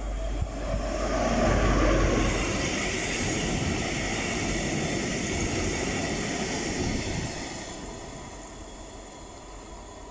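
Freight train passing at speed: a diesel locomotive's engine drone, loudest about two seconds in, then the steady rumble of its tank wagons rolling over the rails, fading as the train moves away.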